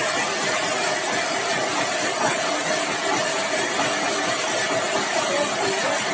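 Sawmill machinery running steadily: an even, engine-like drone with a constant hum in the upper midrange.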